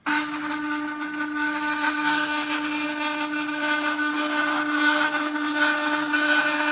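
Stepper motor turning a lead screw to drive the cup carriage of an Arduino-controlled robot bartender along its rail: a steady motor whine that starts suddenly and holds one pitch.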